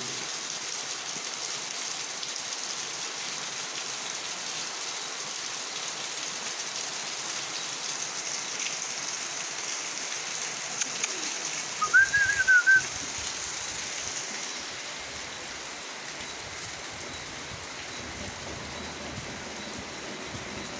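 Steady rain falling, with a short warbling bird call about twelve seconds in, the loudest sound. A high hiss in the background fades out a couple of seconds later.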